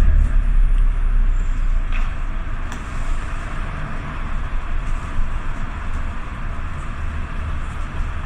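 City traffic heard from underneath a bridge: a steady wash of passing cars and trucks with a deep rumble, and a couple of faint clicks about two and three seconds in.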